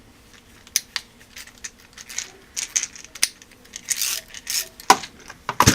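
Hand tools being handled in a toolbox drawer: irregular light clinks and rattles of metal screwdrivers and bits, with a louder knock near the end.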